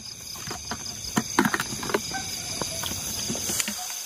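A steady high chirring of night insects such as crickets, with scattered clicks and rustles of footsteps through vegetation, several close together about a second and a half in.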